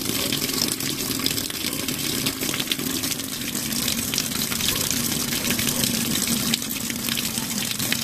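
Water gushing steadily from the Turbo Mixer inlet of a Panasonic MA-FD85X1 top-load washing machine and splashing into the drum as the machine fills.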